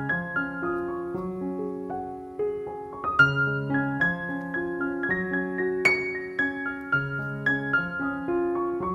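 Background piano music: a melody of struck notes that ring and fade, over lower bass notes.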